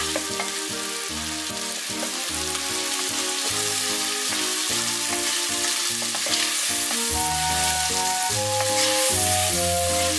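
Diced bacon, carrot, celery and onion sizzling in butter in a pot while a wooden spoon stirs them. Soft background music plays underneath.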